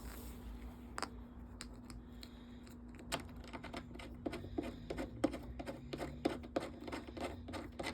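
Irregular light clicks, taps and crinkles of hands handling sofa parts and their packaging, over a faint steady hum.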